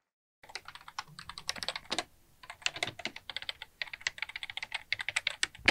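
A run of quick, irregular, sharp clicks with a short pause about two seconds in, ending on one louder click.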